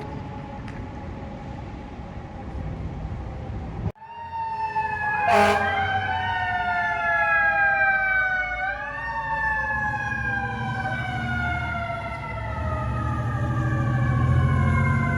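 Fire truck sirens: first a siren slowly falling in pitch and fading under street traffic, then, after a sudden cut, a fire engine's mechanical siren wailing, its pitch sliding down and climbing back up twice as it is spun up again, with a short sharp blast about five seconds in and the truck's engine running underneath.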